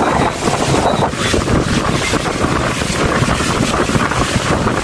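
Steady rush of wind buffeting the microphone and water streaming past the hull of a motorboat under way.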